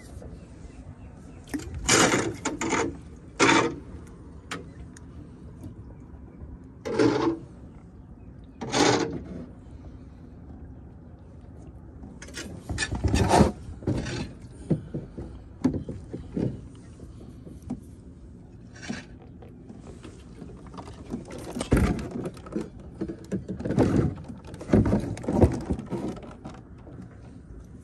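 Scattered knocks, bumps and scrapes of handling in a small fishing boat: rod, reel and gear knocking about in the hull, with a few heavier thumps in the last few seconds.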